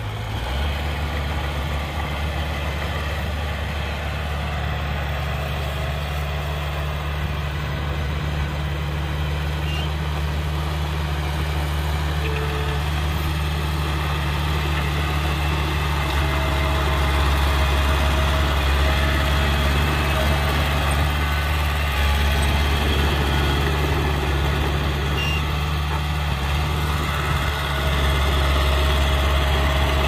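Heavy earthmoving machine's diesel engine running steadily, growing louder about halfway through and again near the end.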